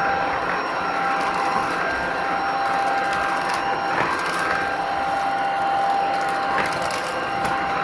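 Tocmoc T230 cordless stick vacuum running steadily with a constant whine, while gravel crackles and clicks as it is sucked up off a boot mat.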